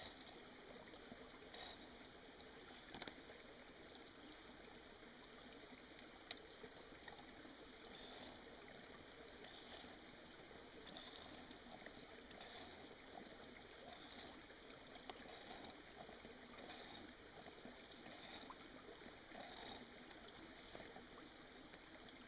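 Faint steady trickle of a small creek. Over it come soft, regular strokes of an MSR HyperFlow hand-pump water filter being pumped, about one every second and a half, starting about eight seconds in.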